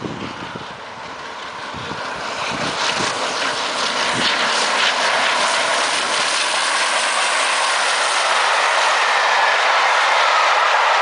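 LNER Peppercorn A1 Pacific steam locomotive 60163 Tornado, a three-cylinder engine, passing at speed with its train of coaches. The sound grows louder as the train approaches, then settles into a steady rushing noise of wheels on rails as the coaches roll by.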